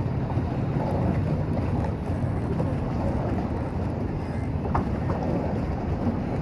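Wind rumbling steadily on the microphone, mixed with water noise from a paddle boat moving across the lake.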